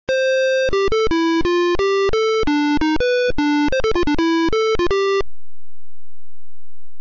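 Single-voice computer synthesizer melody, the handwritten tune read from the scanned score being played back note by note: about twenty notes with a bright, buzzy electronic tone, a longer first note, a quick run of short notes around the middle, ending abruptly about five seconds in, followed by a faint low hum.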